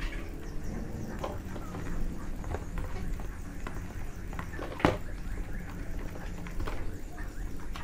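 Small plastic clicks and taps as propellers are fitted and screwed onto the motors of a Global Drone X183 GPS quadcopter, with one sharper click about five seconds in, over a steady low hum.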